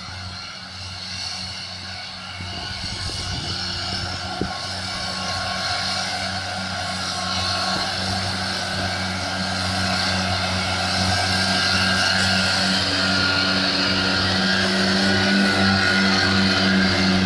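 Tractor engine and a Kuhn front-and-side disc mower combination running while mowing grass: a steady mechanical drone that grows steadily louder as the rig approaches.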